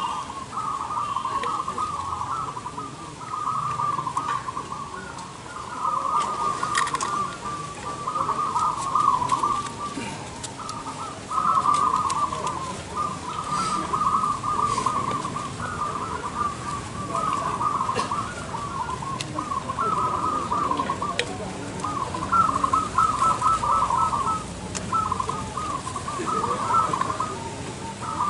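A chorus of many caged zebra doves (perkutut) cooing, their trilled calls overlapping almost without a break, with short lulls now and then.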